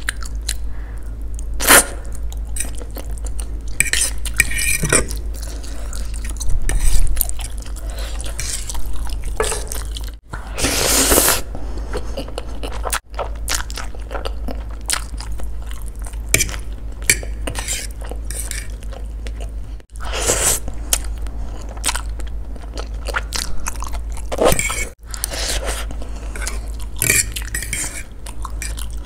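Close-miked chewing of spicy instant noodles, with a metal fork clicking and scraping on the plate at irregular intervals.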